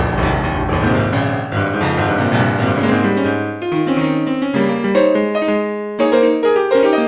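Piano music. Chords and melody notes are played one after another, with a fuller low accompaniment in the first half and a lighter run of notes later.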